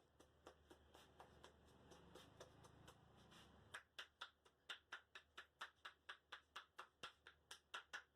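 Barber's hands tapping rhythmically in a percussive head massage, about four strokes a second: light taps at first, becoming sharper, louder strikes from about four seconds in.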